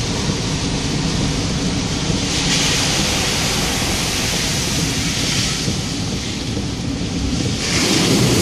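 Vehicle driving on a wet road, heard from inside the cab: a steady engine and road rumble with tyre hiss. Near the end a louder rush of water spray comes in as it drives into floodwater across the road.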